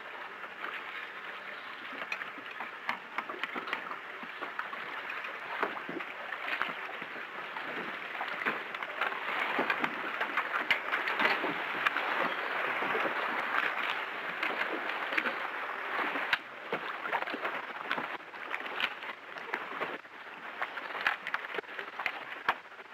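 Gasoline running from a fuel-dock pump nozzle into a boat's fuel tank: a steady rushing, splashing pour with many small clicks. It swells in the middle and drops off about two-thirds of the way through, as the flow eases.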